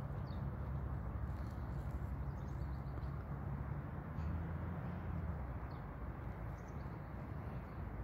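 Outdoor ambience: a steady, uneven low rumble of wind on the microphone, with faint short bird chirps now and then.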